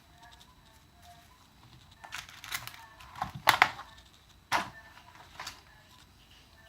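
Small plastic and metal parts being handled at close range: a run of light clicks and rustles, with the loudest clicks a little past the middle.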